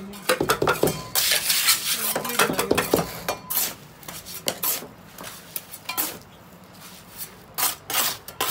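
Hand trowel scraping and knocking on wet cement and the tile mould: a quick run of scrapes and knocks for about the first three seconds, then sparser strokes.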